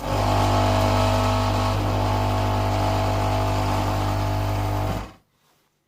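DeLonghi espresso machine's pump buzzing steadily for about five seconds, then cutting off abruptly: a short dose of water to pre-wet the coffee grounds in the portafilter before brewing.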